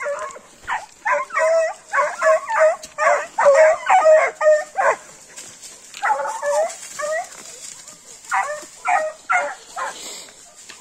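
Hounds barking in short, high-pitched yelps, fired off in quick runs: a long flurry over the first five seconds, a shorter run about six seconds in, and another around eight to ten seconds.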